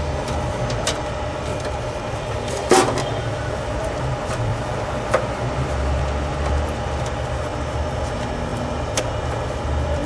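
A few short, sharp clicks from handling an RJ45 keystone jack as the wires are pressed into it, the loudest a little under three seconds in, over a steady low hum.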